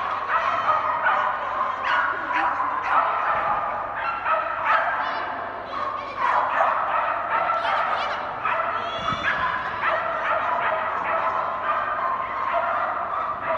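A dog barking over and over, several short barks a second without a break.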